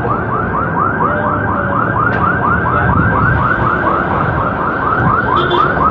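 Car alarm sounding a rapid electronic warble, about five rising-and-falling whoops a second, over the steady noise of street traffic.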